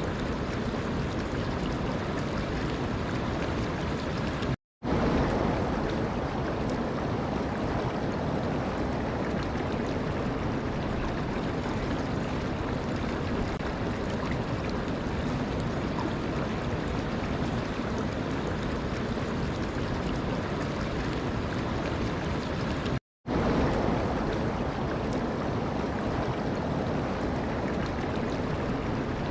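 Steady rushing water, like a stream or surf, broken twice by a split second of silence, about four and a half seconds in and again near the end.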